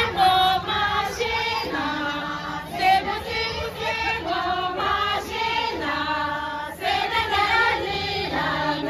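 Tibetan gorshey circle-dance song sung in unison by a group of dancers, mostly women's voices, the line holding long notes and sliding between them.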